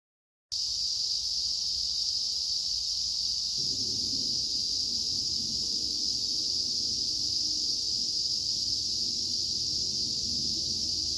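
Steady, high-pitched chorus of insects that cuts in abruptly half a second in and runs on unbroken. A faint low rustling noise joins about three and a half seconds in.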